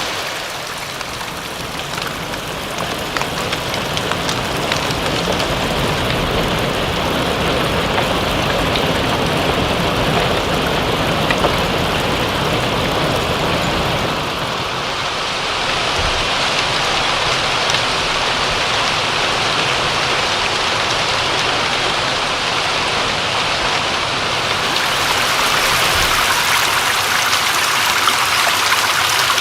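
Steady rain with running water, a continuous even hiss. The sound changes twice, about halfway through and again near the end.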